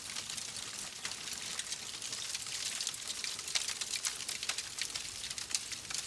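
Log fire in a fireplace crackling steadily, a dense run of small snaps over a soft hiss, with a few louder pops in the second half.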